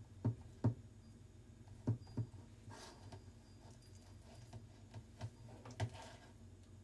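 Hands kneading dango dough in a bowl: faint, soft knocks coming at uneven intervals.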